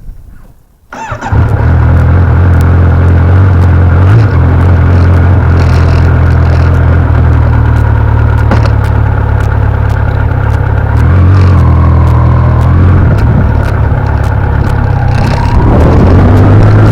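Kawasaki Z900 inline-four motorcycle engine starting about a second in, then running steadily at idle, with a slight change in engine note near the end.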